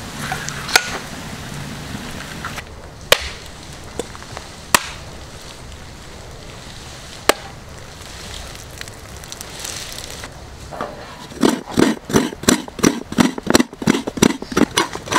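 A few sharp, separate knocks of a cleaver striking a whole coconut to crack it open. About two-thirds of the way in, a fast, even run of scraping strokes begins, about four a second: a coconut half being grated by hand on a coconut scraper.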